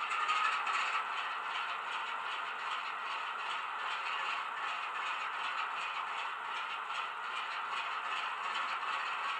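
Class 08 diesel shunter engine sound from a Loksound 5 micro decoder, played through a Hornby model's small bass-enhanced speaker. The engine runs steadily while the model stands still, with a light rattle and little deep bass.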